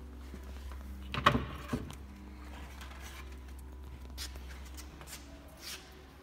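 Wooden cabinet door being opened: a quick cluster of sharp clicks and knocks from its metal latch and the door about a second in, then a few lighter clicks.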